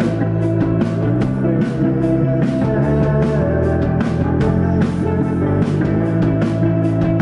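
Live rock band playing loud: electric guitars and bass over a drum kit keeping a steady beat.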